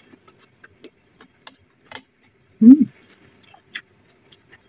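Metal spoon clicking and scraping lightly against a ceramic plate as food is scooped up, a few scattered clinks. About two and a half seconds in comes one short voiced sound from the eater, the loudest thing here.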